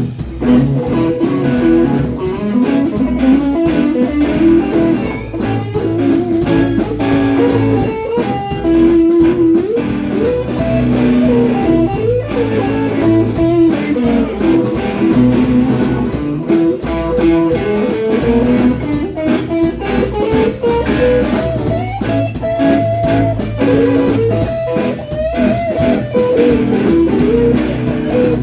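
Live blues-rock band playing an instrumental solo break: a lead line with bent notes, most likely electric guitar, over bass and drums.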